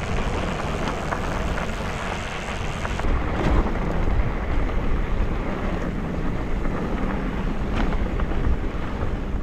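Wind buffeting the microphone of a handlebar-mounted action camera on a moving bicycle, over a steady rumble of tyres rolling on a gravel road.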